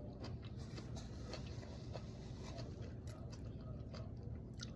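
Close-miked chewing of a salad: irregular soft crunches and wet mouth clicks over a low, steady hum.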